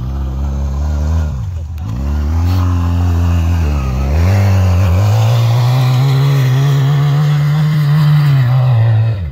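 Quad bike engine revving up and easing off twice as the throttle is worked. It is then held at high revs for about five seconds, its pitch slowly climbing as the quad drives up a slope, and it drops off sharply near the end.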